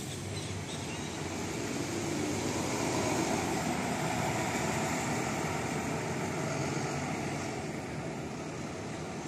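Volvo B9TL double-decker bus with Wright Eclipse Gemini 2 body, engine running as it pulls away and drives past. It grows louder to a peak about three seconds in, then eases off as the bus moves away.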